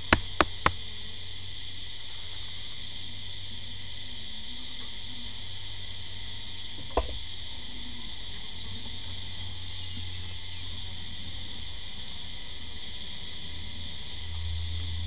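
Steady high-pitched drone of insects calling in the background, with a few sharp clicks in the first second and one knock about seven seconds in as the wooden nuc box and its parts are handled.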